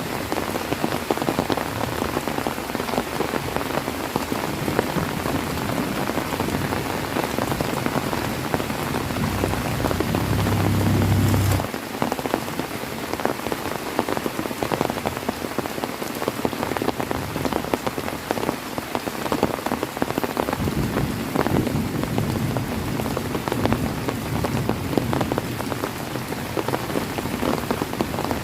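Heavy rain falling steadily, with many close drops pattering on a surface. A low rumble swells about nine seconds in and stops abruptly a little before twelve seconds.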